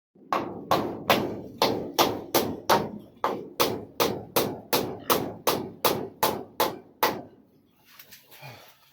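A steady series of about eighteen sharp knocks, like hammer blows, at roughly two and a half a second. Each one rings briefly, and they stop about seven seconds in.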